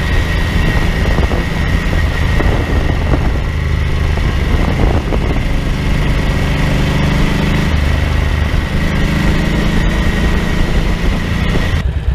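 Ducati 900SS bevel-drive 90-degree V-twin engine running under way, heard from low on the front forks with heavy wind and road rush over it. The engine note shifts in pitch a few times as the bike changes speed, and the sound cuts off abruptly near the end.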